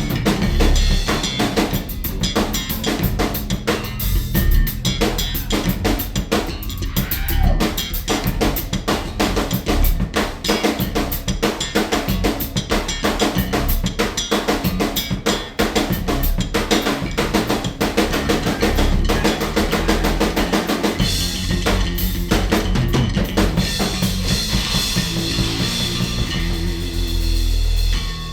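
Free-jazz band recording dominated by fast, busy drum-kit playing, with bass and electric guitar underneath.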